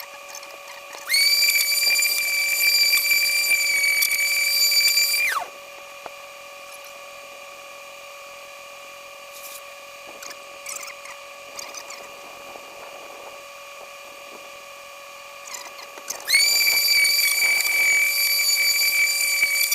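Small antique electric sander wet-sanding a plastic headlight lens with 500-grit paper. It runs in two bursts of about four seconds each, a steady high whine that winds down in pitch as it is switched off. Between the bursts there is only a faint steady hum.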